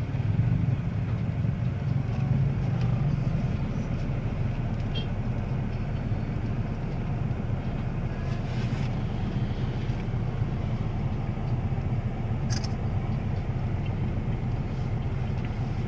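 Steady low hum of idling traffic in a jam, heard from inside a car's cabin: car engine and motorcycles ticking over close around, with a brief high sound about twelve seconds in.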